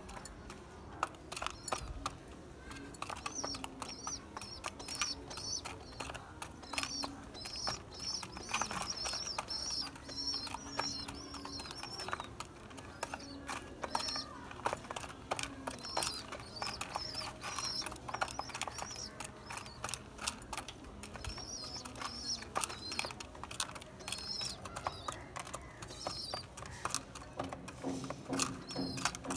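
Pigeons' beaks pecking grain from clay feed pots and a plastic tray, a fast, irregular clatter of small taps. Short high bird chirps repeat through much of it.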